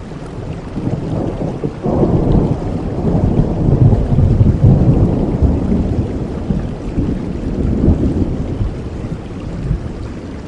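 Steady rain with a long, low rumble of thunder that breaks in about two seconds in, swells, and slowly dies away near the end.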